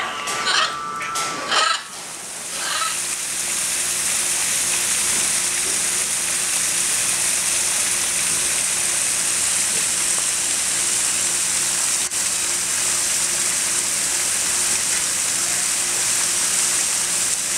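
A few short high calls in the first two seconds, then a steady, loud hiss of water that sets in and holds on without change.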